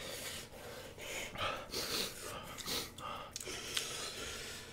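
A man's quick, heavy breaths drawn in and blown out through the mouth, several in a row, as he reels from the heat of spicy Buldak fire noodles.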